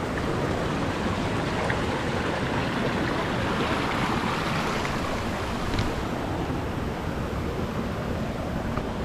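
Waterfall cascading over granite rock: a steady rush of falling water.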